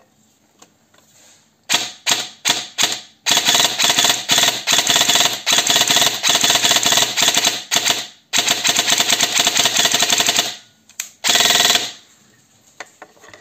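G&G ARP9 airsoft electric gun firing: about four single shots, then two long full-auto bursts with a short break between them, then one more shot and a short burst. It is being test-fired with a spacer on the spring guide meant to give the piston more push, which the owner finds did not work.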